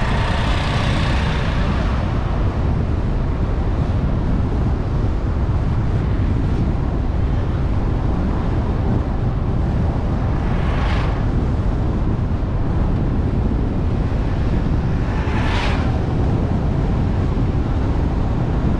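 Steady wind and road rumble from a camera mounted on a moving vehicle. Two brief swells of higher hiss come about 11 and 15 seconds in.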